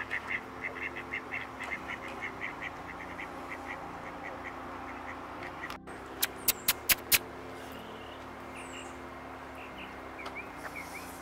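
A duck quacking in a quick run of short calls that slows and fades over the first three seconds or so. A little past the middle come five sharp, loud clicks in quick succession, the loudest sounds here, with a few faint high bird chirps later over a steady low hum.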